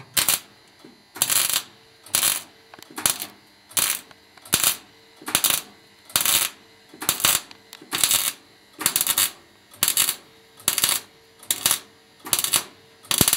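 Semi-automatic (MIG) welder arc crackling in short bursts, a little more than one a second, as thin floor-pan sheet steel is welded along a butt joint a little at a time.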